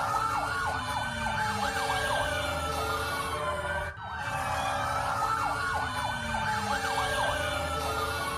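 Several sirens wailing together, their pitches slowly rising and falling against each other, with many short quick sweeps on top and a low rumble underneath. The whole pattern repeats about every four seconds, with a short dip about four seconds in.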